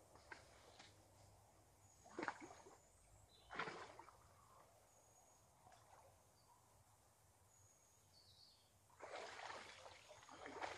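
River water splashing as a smouldering log stove is dunked to put it out: two short splashes a couple of seconds in, then a longer rush of sloshing water near the end as the log is lifted out, steaming.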